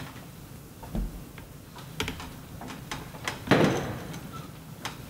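Tools and materials being handled up on a ladder at a shingled roof edge: scattered clicks and light knocks, a low thump about a second in, and a short louder scraping rustle about three and a half seconds in.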